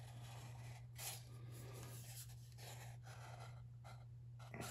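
Near silence over a steady low hum, with faint rubbing and rustling from a rolled sheet-metal muffler shell being handled.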